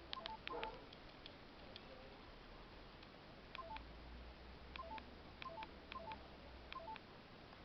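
LG A180 mobile phone keypad being pressed: faint button clicks, each with a short two-note beep falling from a higher to a lower note. A quick cluster of presses comes at the start, then about five spaced presses from about three and a half seconds in.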